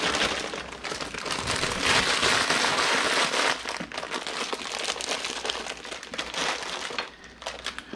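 Plastic bag of dry egg noodles crinkling as the noodles are shaken out into a pot of boiling water, loudest in the first few seconds, then lighter crinkles and clicks as the bag is handled and set down.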